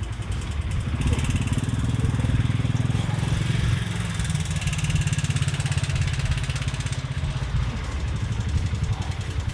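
Small utility vehicle's engine running as it drives slowly past close by: a pulsing low rumble that grows louder about a second in and eases off near the end.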